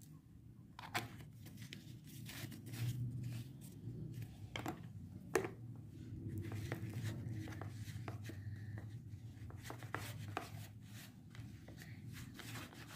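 Metal spoon stirring and scraping a soft flour-and-salt dough in a plastic tray, with irregular clicks and scrapes against the tray, over a faint low hum.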